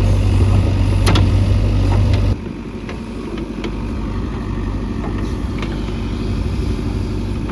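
JCB 3DX backhoe loader's diesel engine running steadily, with a sharp knock about a second in. A little over two seconds in the sound drops abruptly to a quieter, even engine hum with a few light clanks.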